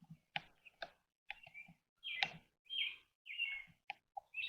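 A bird calling: short chirps repeated a little under twice a second, starting about two seconds in, after a few soft clicks.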